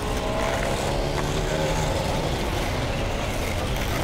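Steady low rumble of city traffic, with a passing vehicle's engine hum that slowly drops in pitch during the first couple of seconds.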